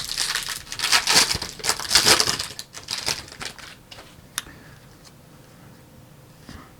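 Foil wrapper of a trading card pack being torn open and crinkled, loudest over the first three seconds, then dying down with a single sharp click about four seconds in.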